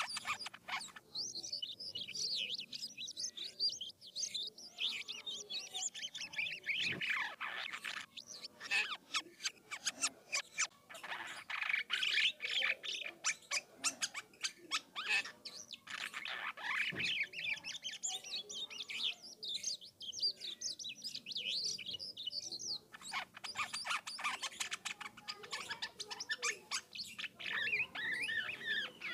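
Jalak kapas starling singing a continuous, varied rolling song of rapid chattering chirps and short whistled glides.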